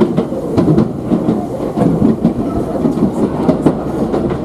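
Commuter train running on the Tobu Skytree Line, heard from inside the passenger car: a steady rumble of wheels on rail with many sharp, irregular clicks and rattles from the wheels over rail joints.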